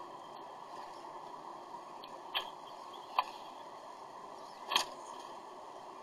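Northern cardinal pecking at sunflower seeds on a metal feeder tray: three sharp clicks over a steady background hiss.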